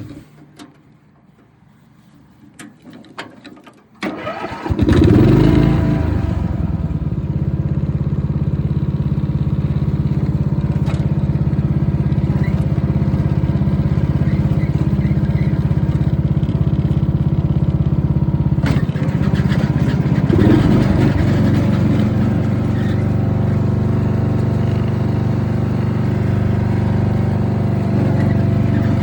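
Simplicity 3110 riding mower's 10 hp Briggs & Stratton engine: a few small clicks, then the electric starter cranks about four seconds in, the engine catches within about a second and runs steadily. Its note shifts briefly around twenty seconds in.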